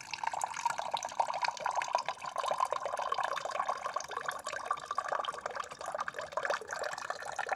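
Thin stream of water from a Consul electronic water purifier's cold-water outlet running and splashing into a glass tumbler, filling it steadily.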